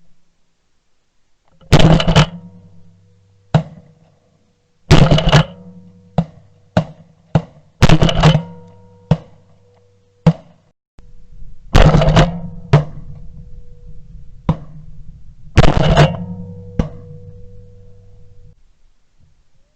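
Background music: heavy drum hits with sustained low bass notes ringing under them and a held higher tone.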